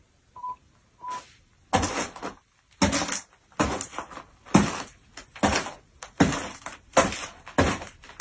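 Three short beep tones, then a steady series of crunching noises about once a second, like a foley effect being performed.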